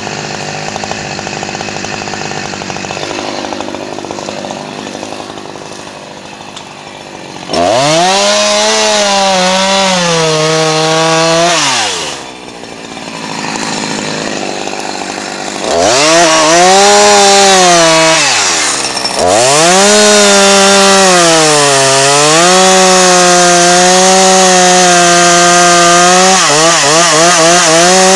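Two-stroke chainsaw cutting into the trunk of a white pine. It runs quieter for the first several seconds, then goes to full throttle, its pitch sagging and recovering as the chain bites into the wood, easing off twice before running on in the cut.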